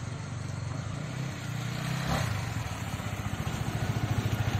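Motorcycle engine idling with a steady, even pulse, growing gradually louder.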